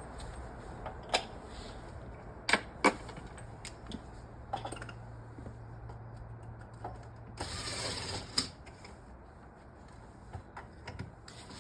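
Sharp clicks and knocks from fitting a plastic base plate and concrete screws to a block wall. About seven seconds in there is a burst of noise lasting about a second.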